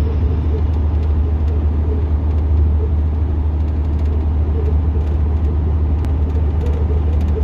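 Steady low rumble of engine and road noise from a motor vehicle driving at highway speed, heard inside the cab.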